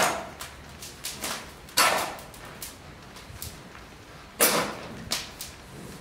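Long-handled rake dragging red-hot Kishu binchotan charcoal and ash out of the kiln mouth: a scraping rush with each pull, three pulls about two and a half seconds apart, with lighter clinks between.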